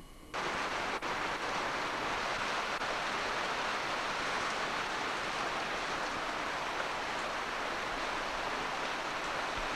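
Steady rush of water, heavy rain or a swollen mountain stream, cutting in suddenly just after the start.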